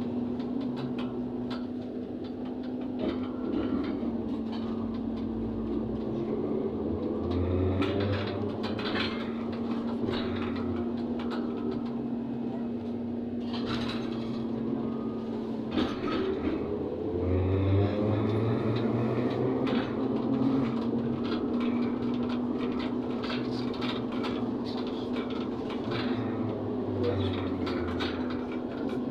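Interior sound of a ZiU-682G trolleybus on the move: a steady electric hum under a traction-motor whine that rises and falls in pitch twice as the trolleybus speeds up and slows, with body rattles and road rumble.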